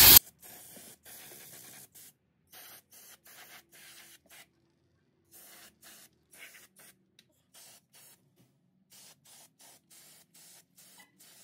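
Aerosol brake cleaner hissing out of the can onto a new brake rotor, in many short bursts. The first burst, right at the start, is loud and the rest are fainter.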